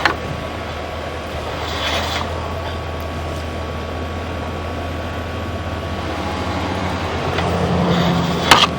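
Steady low machine hum with a noisy rush over it, growing slightly louder toward the end, with a couple of sharp clicks just before the end.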